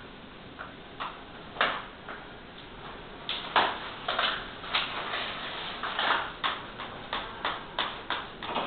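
Short scraping and crackling strokes from a flexible plastic whiteboard sheet being worked onto a wall, a few at first and then about two a second from a few seconds in.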